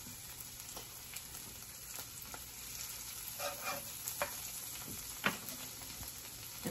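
Butter melting and sizzling in a nonstick frying pan of broccoli over a gas flame. A utensil pushes it around the pan, with a few sharp taps against the pan, the loudest a little past five seconds in.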